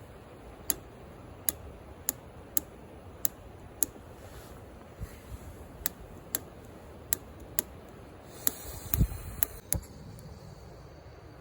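Piezo igniter of a small gas camping stove clicking over and over, one sharp click every half-second or so, while the gas is trying to light. About nine seconds in the clicks come faster and louder, with a low thump among them, and after that only a steady low hiss is left.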